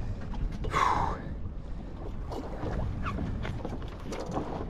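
Steady wind and water noise around a small fishing boat, with scattered light clicks and knocks and a brief louder sound about a second in.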